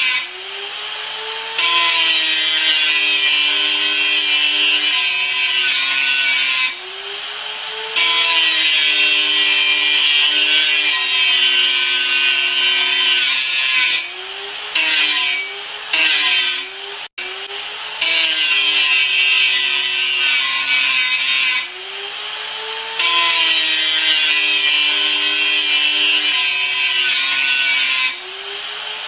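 Electric grinder running under load, with a loud grinding hiss over the steady whine of its motor. About every six seconds the hiss breaks off for a second or so while the motor keeps spinning, as the tool comes off the work, with several quick breaks in a row near the middle.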